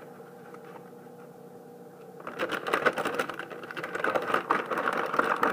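Plastic bag of shredded cheese crinkling and rustling in the hands, a dense run of quick crackles that starts suddenly about two seconds in, as the clumped cheese inside is broken up. Before that only a faint steady room hum.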